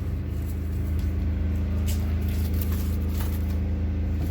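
Steady low mechanical hum with several even overtones, unchanging throughout, with a few faint light crackles of dried herbs being handled.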